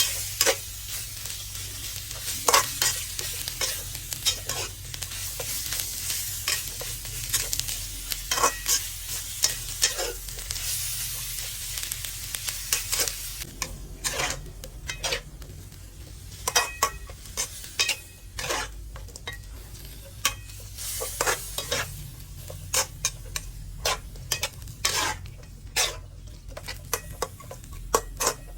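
Stir-frying frog in a pan: a sizzle with repeated scrapes and clicks of a spatula against the pan. The sizzle dies down about halfway through, leaving mostly the spatula strikes.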